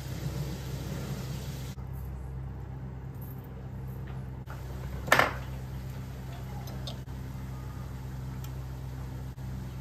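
Cutlery on a china plate: one sharp clink about halfway through and a few faint taps, over a steady low hum.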